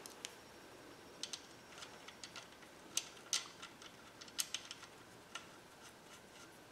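Faint, irregular small metallic clicks and ticks from steel rod-cap nuts being handled and threaded by hand onto the connecting-rod bolts of a small-block Chevy 350.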